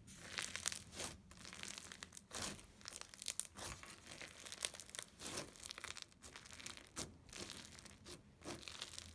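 Crunchy microfilm slime with a thick white glue base being worked by hand, giving a dense run of sharp, irregular crackles and crunches.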